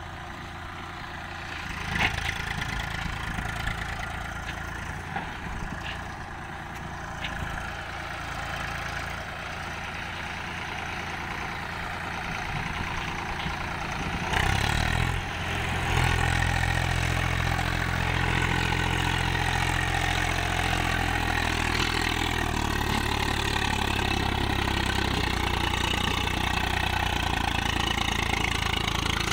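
Swaraj tractor's diesel engine pulling a heavily loaded sand trailer through loose sand, hard enough that the front wheels lift. It is faint and farther off at first, then close and loud and steady from about halfway.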